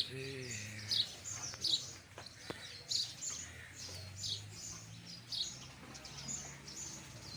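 A small bird chirping over and over, short high chirps about every half second to second, over a faint low hum.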